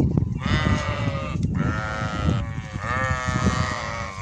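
Goats bleating in a pen: three long, wavering calls one after another.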